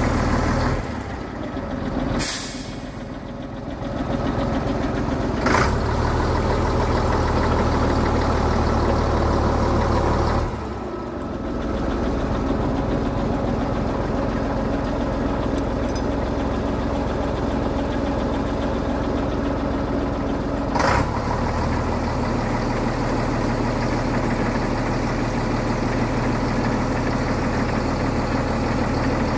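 Scania P93HL truck's nine-litre six-cylinder diesel running steadily while its loader crane is worked, the engine note shifting a couple of times. A short sharp air hiss from the truck's air system about two seconds in, with briefer hisses near six and twenty-one seconds.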